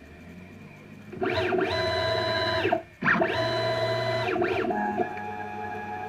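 Stepper motors of a home-built CNC router making two quick traverse moves, about a second and a half each. Each move is a whine that rises in pitch, holds steady, then falls away as the axis speeds up and slows down. A quieter steady tone follows near the end.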